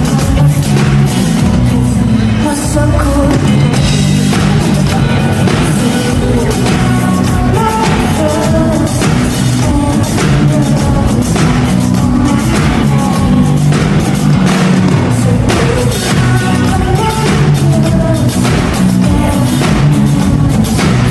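Live pop-rock band playing a song loudly: a drum kit keeping a steady beat over heavy bass, with a singer's voice carrying the melody.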